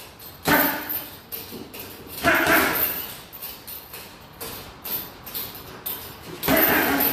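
Three loud, short vocal bursts, the first just after the start, the second a little past two seconds and the last near the end. Between them come softer thuds of gloved punches landing on a heavy punching bag.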